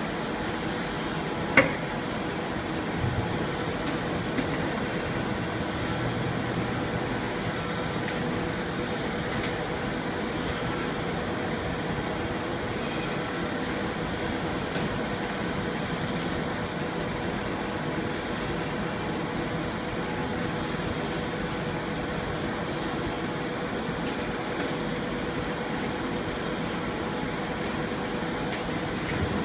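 Plastic film blowing machine running steadily: an even mechanical running noise with a constant high whine, and one sharp click about a second and a half in.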